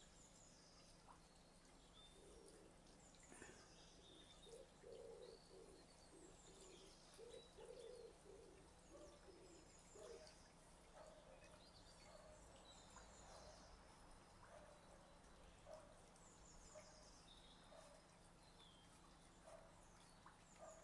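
Faint garden birdsong: a pigeon cooing in a repeated series of low notes, with small birds chirping and trilling high above it.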